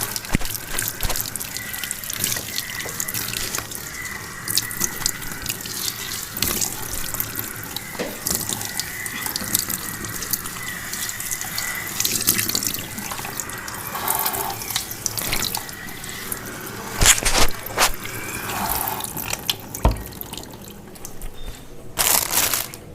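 Tap water running into a sink with irregular splashing as shampoo is rinsed out of hair, with a couple of louder splashes in the last third.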